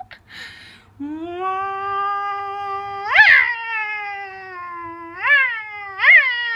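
Tabby cat's short hiss, then a long, drawn-out low yowl that swells sharply upward in pitch three times: an angry, defensive warning at the hand touching it.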